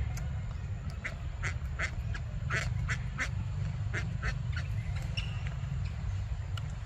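A quick run of about ten short, sharp animal calls over some three seconds, starting about a second in, over a steady low rumble.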